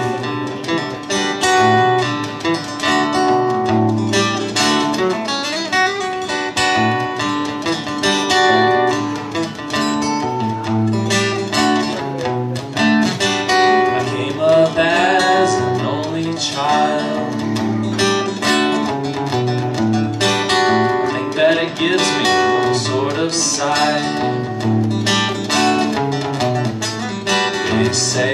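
Acoustic guitar played live, with a man singing along.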